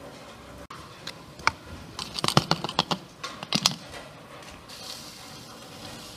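A quick run of light clicks and taps about two seconds in, lasting under two seconds, followed by a faint steady hiss.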